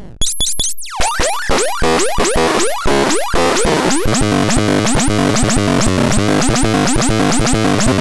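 Handmade SENZATRON personal synthesizer sounding repeated electronic chirps, each a quick arching pitch sweep. They come about two a second at first, then from about halfway through speed up to about four a second over a harsh, gritty noise.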